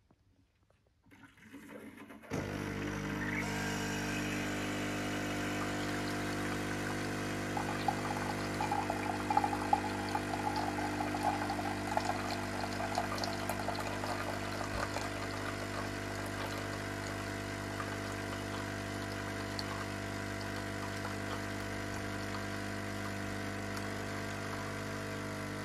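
Nespresso OriginalLine capsule machine brewing a Lungo: about two seconds in its pump starts with a steady buzzing hum while coffee runs into the glass, and it stops abruptly near the end.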